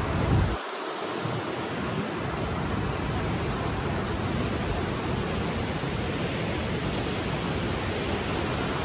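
Steady rush of ocean surf breaking on a beach. A low wind rumble on the microphone cuts off about half a second in.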